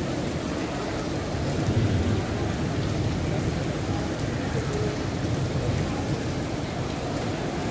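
Steady rain falling on wet marble paving, an even hiss, with a low rumble swelling from about a second and a half in until about six seconds.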